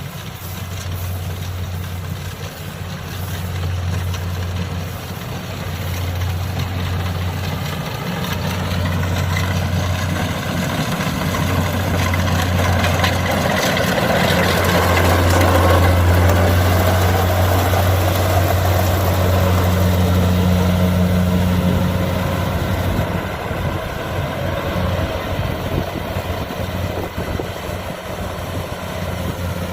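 Kubota DC70 combine harvester running with a steady low diesel engine hum and the clatter of its working parts, growing louder toward the middle and then easing off.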